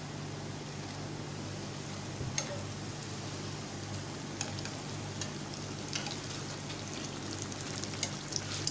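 Breaded potato cheese sticks deep-frying in hot oil in a shallow pan: a steady sizzle, with a few light clicks as the sticks are turned.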